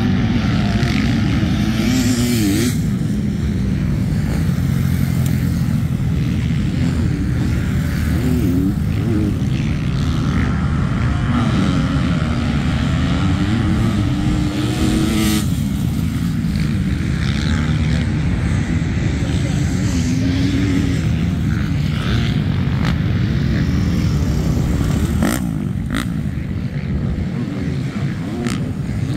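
Motocross dirt bikes' four-stroke engines running and revving on the track, their pitch rising and falling as the riders work the throttle.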